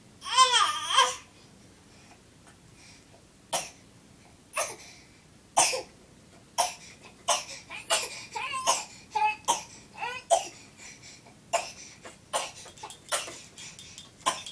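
A baby's fake coughing: a loud, pitched squeal of about a second, then a long string of short, put-on coughs, about one a second at first and coming quicker later, some with a bit of voice in them.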